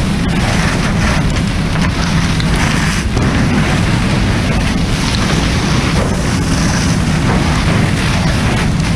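Fire hose nozzle flowing a steady water stream onto burning timber, a continuous loud rush of water and spray with a low rumble underneath.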